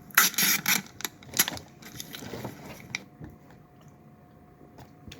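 Mouth noises of someone eating a sub sandwich close to the microphone: a few loud crunchy bites in the first second and a half, quieter chewing until about three seconds in, then only faint mouth sounds.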